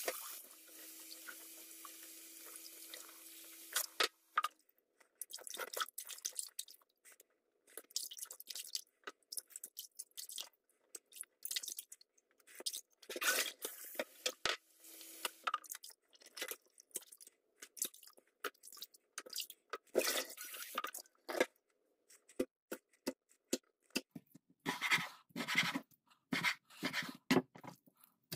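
Raw fish fillets being rinsed by hand in a stainless steel bowl in a sink: tap water runs in two short spells, with irregular splashes and handling noises in between.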